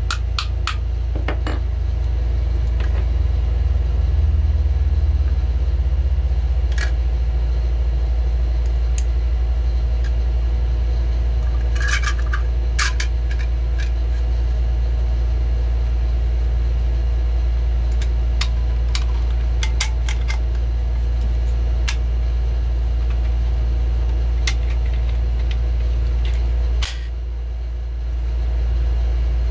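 Scattered clicks, taps and scrapes of the Menendez Mag v3.0 pistol magazine's parts as it is assembled: the metal spring and follower pushed into the magazine body, then the baseplate slid on. A few taps come near the start and a quick cluster about halfway. Under it all runs a loud steady low electrical hum that dips briefly near the end.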